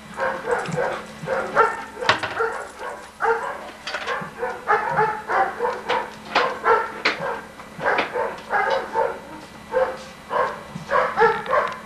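A dog barking over and over, about two or three short barks a second, with a steady low hum underneath.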